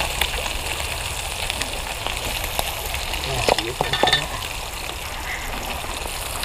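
Fish frying in hot oil in a wok: a steady sizzle with scattered small pops and crackles.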